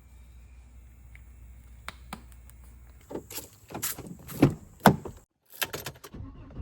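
Tools and metal parts clinking and knocking during work on a two-stroke dirt bike engine: a couple of faint clicks, then from about three seconds in a run of sharper knocks, two of them loud.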